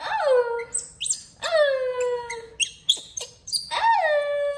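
Baby monkey crying: three long, high calls that each drop sharply in pitch and then trail off, with short squeaky chirps in between. These are the cries of a hungry infant waiting for its milk.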